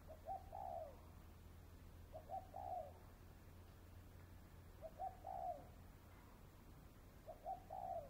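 Spotted dove cooing: four short phrases about two and a half seconds apart, each two quick notes followed by a longer falling note.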